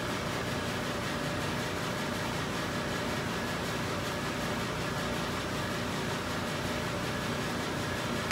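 Steady room background noise: an even hiss with a faint hum and no distinct events.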